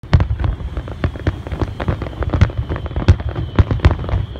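Fireworks display: aerial shells bursting in a rapid, uneven run of bangs and deep booms, several a second.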